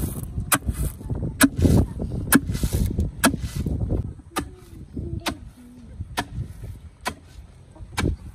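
Long wooden pestle pounding maize in a wooden mortar: a steady rhythm of thuds, about one a second, nine strokes in all. The strokes are louder in the first half.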